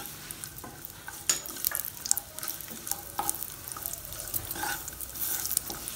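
Cashews and raisins frying in hot ghee in a nonstick pan: a steady sizzle with scattered small crackles, while a wooden spatula stirs and scrapes them around the pan.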